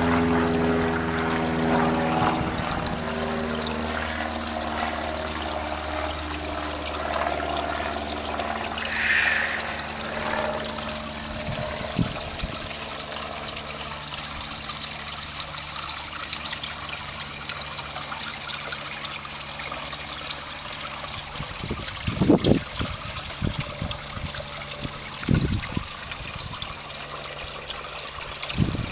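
Two stainless-steel spillway waterfalls pouring steadily into a koi pond, a continuous splashing trickle. A low hum fades out within the first few seconds, and a few low thumps come near the end.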